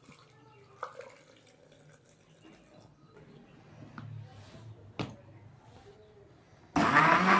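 A couple of light knocks, then about seven seconds in a countertop electric blender switches on and runs loud and steady, blending bananas, sugar and milk into a milkshake.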